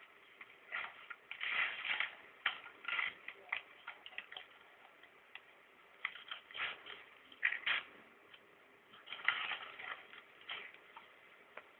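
Irregular clicks, knocks and short rustles of hands handling a bundle of dynamite sticks and their fuse cord, coming in small clusters a second or so apart.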